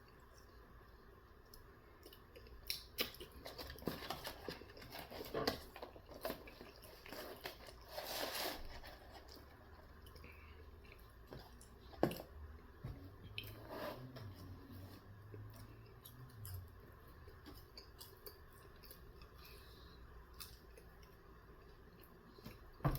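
Faint chewing and eating of sauced chicken nuggets: scattered crunches, clicks and wet mouth sounds, busiest in the first third, then a few isolated clicks.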